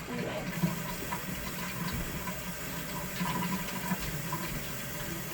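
Pot of water heating on a stove for ramen, giving a steady rushing hiss with small scattered pops.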